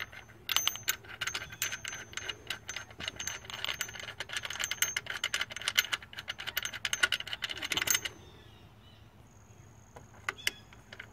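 Ratchet wrench clicking rapidly and steadily for about eight seconds as the A/C bypass pulley's bolt is run down, then stopping; a couple of single metallic clicks near the end.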